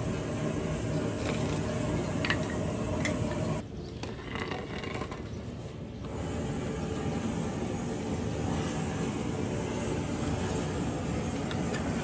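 A steady low mechanical drone, with a few light clicks and knocks of bamboo pieces being fitted together in the first few seconds. The drone drops away for about two seconds near the middle, then returns.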